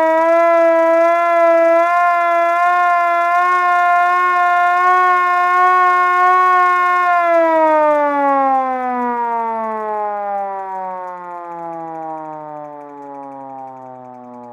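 Vintage manual mechanical fire truck siren wailing at a steady high pitch with a slight waver, then winding down: about halfway through the pitch falls steadily and the sound fades as the rotor slows.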